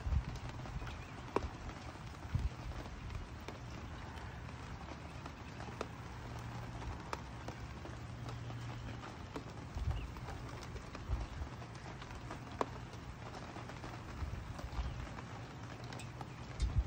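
Spring rain falling on a wooden deck and patio furniture: a steady patter with scattered individual drops tapping, and a few low thumps, the loudest right at the start and near the end.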